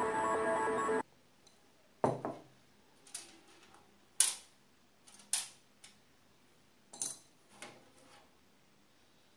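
Background music cuts off about a second in. Then come about half a dozen sharp clicks and taps, roughly a second apart, as small electronic parts and pieces of circuit board are handled and set down on a sheet-metal panel.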